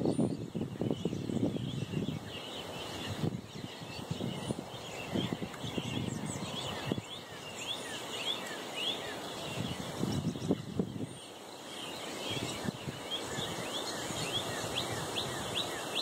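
Many short, high chirps from American robins calling in the surrounding trees, coming thick and fast, busier in the second half. A low rumbling noise runs underneath, swelling near the start and again about ten seconds in.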